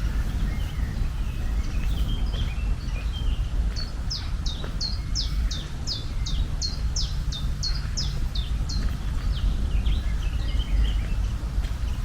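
A songbird singing a run of about a dozen quick, high notes, each sweeping downward, about three a second, with scattered fainter chirps around it. Under it runs a steady low rumble of outdoor background noise.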